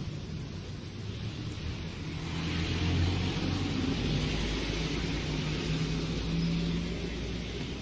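Street traffic: a car's engine hum and tyre noise, growing louder a couple of seconds in and easing off near the end as it passes.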